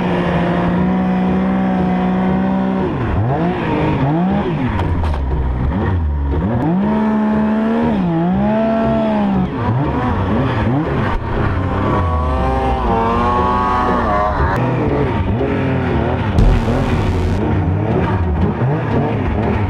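Snowmobile engine running hard in deep snow, its pitch held steady for the first few seconds, then rising and falling again and again as the throttle is worked.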